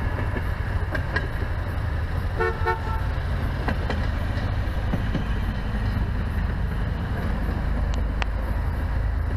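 A railroad speeder's horn gives a short double toot about two and a half seconds in, over a steady low rumble.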